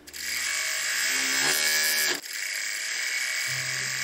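Overlock machine (serger) running at speed, stitching and trimming a knit fabric edge with a steady high buzz that dips for a moment about halfway through, then runs on.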